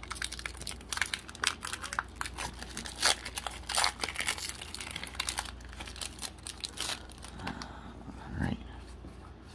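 Foil Pokémon trading-card booster pack wrapper being torn open by hand: a dense run of crinkling and tearing crackles that thins out after about seven seconds, as the cards come out.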